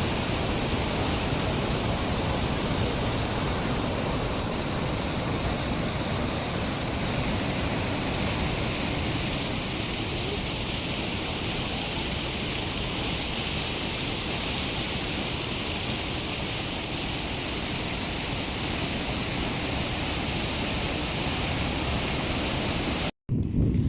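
Steady, loud rush of water, like a waterfall or fast river, unchanging throughout and cut off abruptly near the end.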